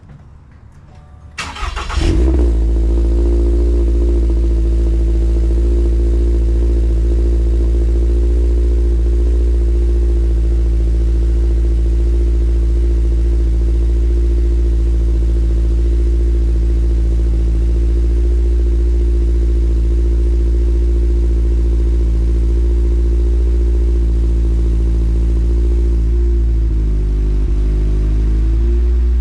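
A 2022 Subaru BRZ's 2.4-litre flat-four starts through a used, worn-in Perrin 3-inch cat-back exhaust. It cranks briefly about a second and a half in, catches, and settles into a steady idle. Near the end the idle dips slightly lower.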